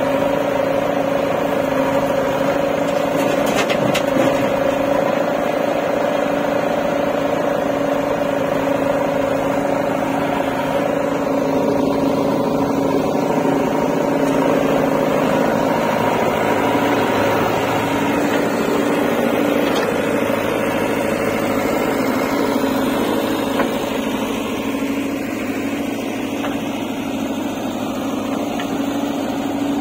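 JCB backhoe loader's diesel engine running steadily at a constant pitch while the machine works.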